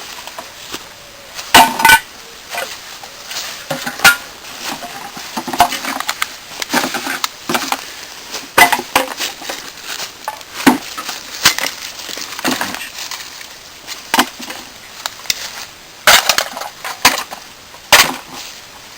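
Rubbish being picked up and gathered by hand: irregular clinks, knocks and crackles of small hard items and packaging, a few with a brief metallic or glassy ring.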